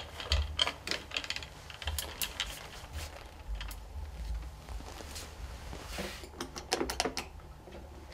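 Irregular clicking and rattling of a vital signs monitor's cables and accessories being handled in the wire basket of its wheeled stand, with a quick run of clicks about seven seconds in.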